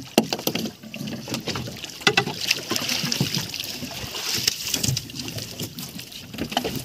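Water splashing and sloshing against a small boat's hull, with irregular knocks and thuds as a large sailfish is hauled over the side.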